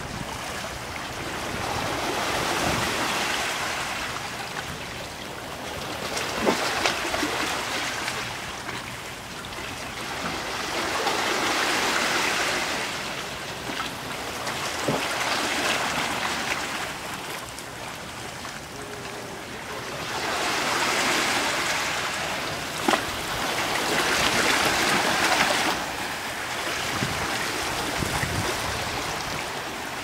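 Sea waves surging and washing over rocks, the rush swelling and easing every four or five seconds, with a few short sharp splashes.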